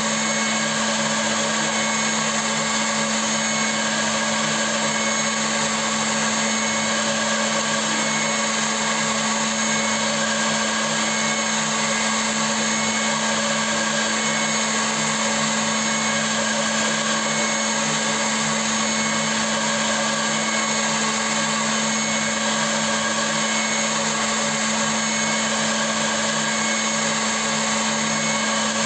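CNC milling machine running steadily: a constant motor hum with several fixed whining tones over a hiss, unchanging throughout.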